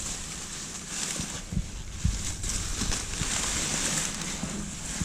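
Wind buffeting the microphone outdoors, with rustling and a few soft knocks.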